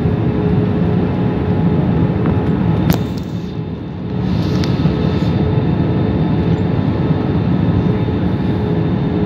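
Steady cabin noise inside an Airbus A320 airliner on its approach descent: engine and airflow rushing with a steady low hum. A single click comes about three seconds in, then the noise dips for about a second before coming back to its level.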